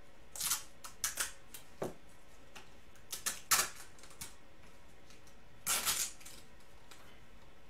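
Hard plastic card case and a stack of trading cards being handled and pried apart: irregular sharp clicks and short scraping rustles, the longest scrape about six seconds in.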